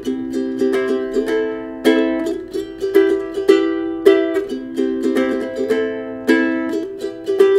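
Acoustic ukulele strummed in a steady rhythm, chords rung with no singing over them, the instrumental close of the song; the last strum near the end is left to ring.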